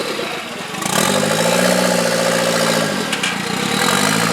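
Modified off-road competition 4x4 truck's engine revving: it climbs about a second in, holds, drops back near three seconds, then climbs again near the end, as the driver works the throttle on the course.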